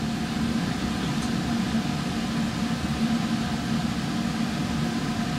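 Laboratory ventilation, most likely a fume hood's exhaust, running: a steady airy hum with a constant low tone under it.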